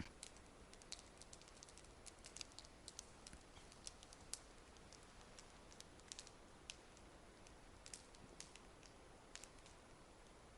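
Near silence, broken by faint, irregular clicks and ticks.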